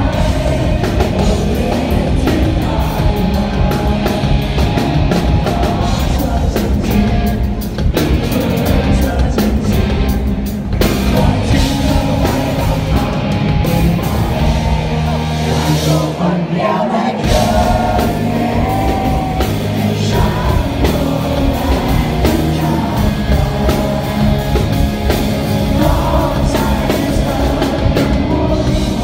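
Live rock band playing with a male lead singer, drums, bass and electric guitar through the PA, heard from the audience. The bass and drums briefly drop away about halfway through, then come back in.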